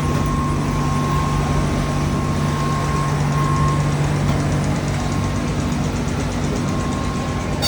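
An old train standing with its machinery running: a steady low hum and a faint high whine that fades out about halfway through.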